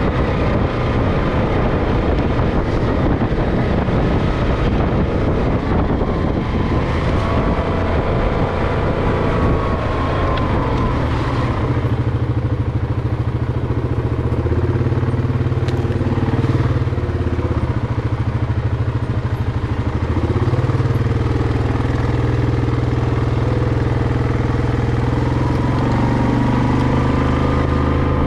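Off-road vehicle engine running on a dirt trail, its speed rising and falling with the throttle. The first part is rougher and noisier; after that the engine note comes through more clearly, changing pitch several times.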